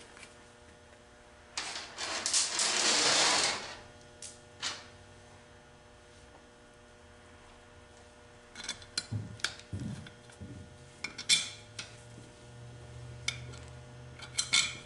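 Workshop handling sounds on a transmission bench: a hiss of about two seconds near the start, then scattered metallic clinks and knocks of tools and transmission parts being handled.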